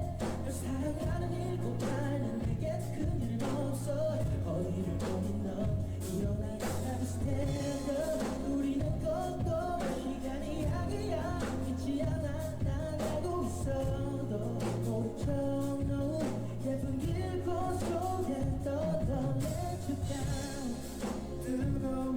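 A male vocalist singing a K-pop song over a backing track with steady bass and drums, from a live performance recording.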